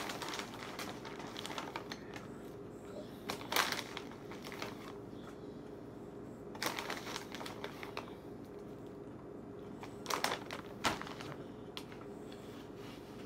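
Plastic snack bag crinkling in several short bursts as it is handled and tipped up, with crunchy chips being chewed between them, over a steady low hum.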